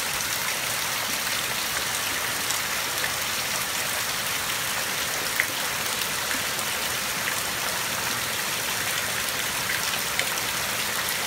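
Heavy rain pouring down, splashing steadily onto a flooded lawn and walkway, with a sharper drip about five seconds in.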